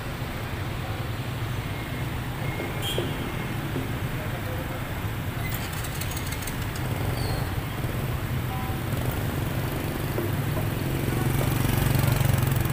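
Street traffic: cars and a minivan running at low speed close by, their engine rumble steady and growing louder near the end as a pickup passes.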